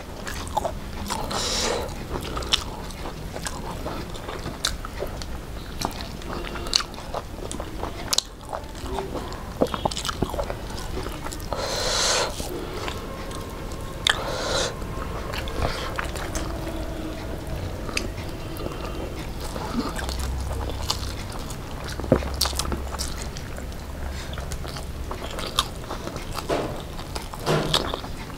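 Close-up eating sounds: chewing and biting with crunchy clicks and smacks, and fingers mixing rice and curry on clay plates.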